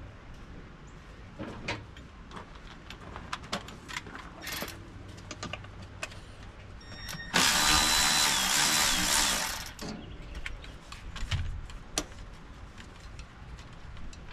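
Light metal clinks and knocks of tools working on a Detroit Diesel 8v92 engine, then a power tool runs in one burst of about two and a half seconds, with a faint whine, before the clinking resumes.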